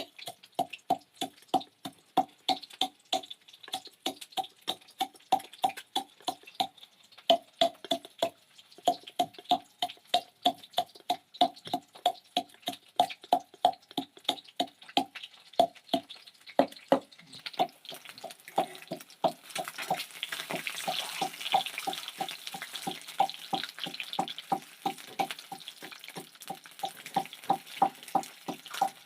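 Rhythmic ringing knocks, about three a second, pausing briefly about eight seconds in, with the sound of running or splashing water joining them in the second half.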